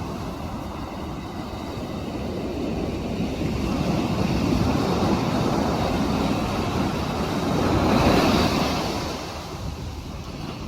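Ocean surf: a wave rolling in and building to a breaking crash about three-quarters of the way through, then falling away as it washes back.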